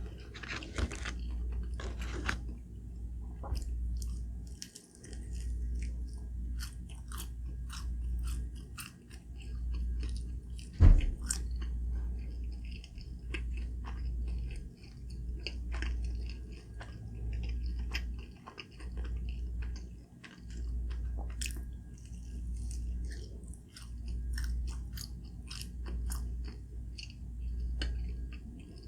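A person chewing and biting food close to the microphone: steady chews with small crunches and mouth clicks, swelling and fading about once a second, and one sharper, louder click about eleven seconds in.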